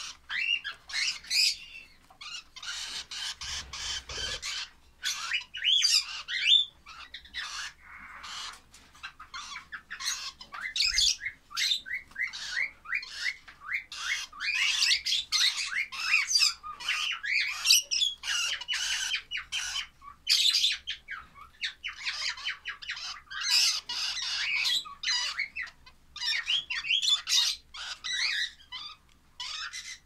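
Lovebird chicks giving rapid, squeaky begging calls, almost without a break, while being hand-fed formula from a syringe.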